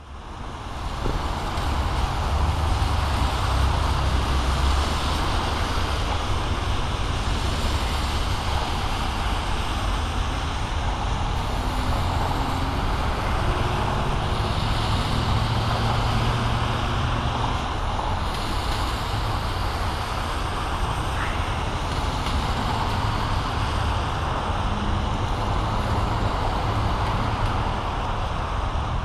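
Steady road traffic noise: vehicles running and passing on the road, with a low rumble that rises and falls.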